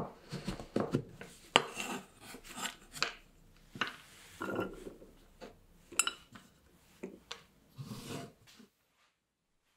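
A kitchen knife cutting milk chocolate bars on a wooden cutting board: irregular crunching cuts and knocks of the blade on the wood, with rasping scrapes across the board. It cuts off suddenly near the end.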